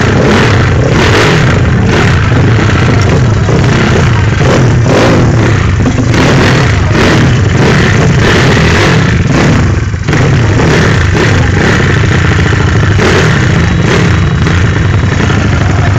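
Yamaha Mio scooter's single-cylinder engine revved hard over and over through an aftermarket open exhaust, very loud, surging about once a second.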